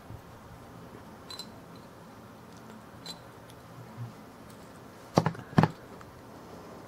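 Small metal clicks from handling a Ronson lighter and a small tool while a new wick is worked inside it: a few faint ticks, then two louder sharp clicks about half a second apart near the end.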